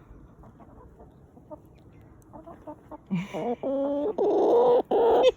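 Hen calling: after faint shuffling and clicks, a run of about five loud, drawn-out squawking clucks begins about three seconds in.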